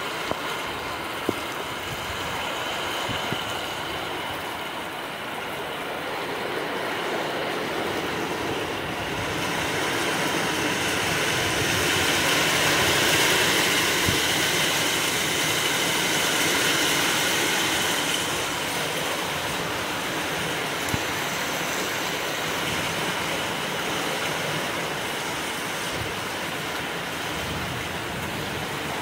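Heavy rain pouring steadily on trees and bare ground, growing louder for several seconds in the middle before easing back.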